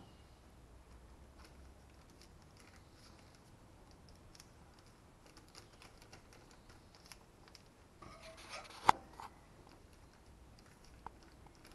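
Quiet hand handling of puff pastry on baking paper: faint rustles and small taps. About nine seconds in there is a brief rustle ending in one sharp click of a metal fork against the worktop, then a smaller click.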